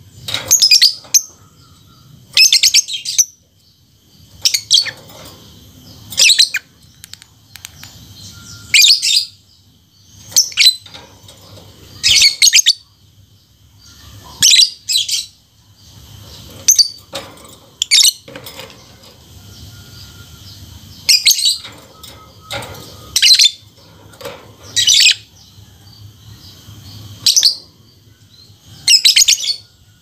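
Lovebird chattering in repeated short bursts of rapid, high-pitched chirps, a burst every one to three seconds with brief pauses between.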